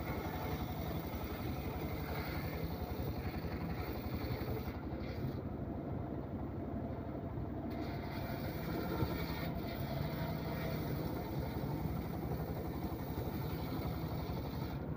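Homemade engine-driven circular sawmill running steadily, its blade ripping acacia planks lengthwise. The higher cutting hiss drops away for a few seconds in the middle, then returns.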